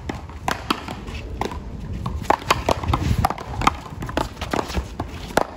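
One-wall paddleball rally: solid paddles striking the ball and the ball smacking the concrete wall and court, a quick, uneven series of sharp knocks.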